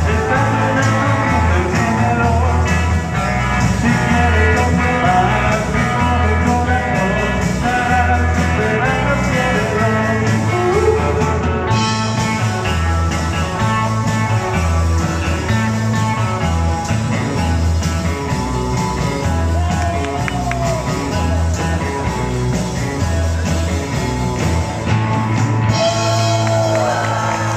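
Live band playing an upbeat country-rock song: electric guitar, electric bass, drum kit and a lead singer, with a steady bass beat.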